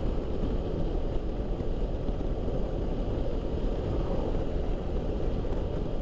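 Steady wind rush and road noise of a Honda CB500X motorcycle cruising at highway speed, heard from a camera mounted on the bike, with wind on the microphone.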